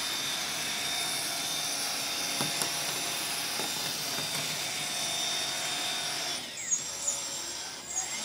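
LESU 945 1/14-scale RC hydraulic excavator running its track drives and spinning in place on its metal tracks: a steady high mechanical whir and whine from the motors and gearing. About six seconds in it eases off, with a few light clicks.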